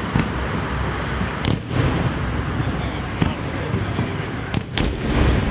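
Fireworks display: several sharp bangs of shells bursting, the clearest about a second and a half in and near the end, over a steady background din.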